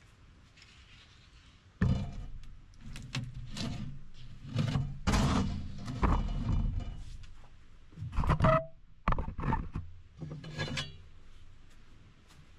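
A sheet of OSB board being handled on a wooden picnic table: a string of knocks, thuds and scrapes of board against wood, starting about two seconds in, with a brief squeak a little past the middle.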